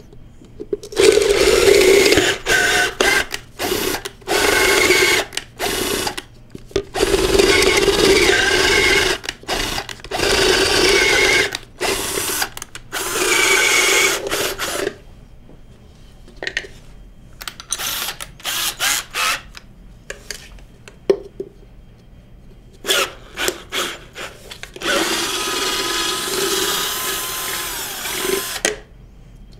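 Cordless drill with a 1/2-inch bit boring the center hole through the end of a prosthetic socket. It runs in many short trigger bursts with pauses between, and there is a longer steady run near the end.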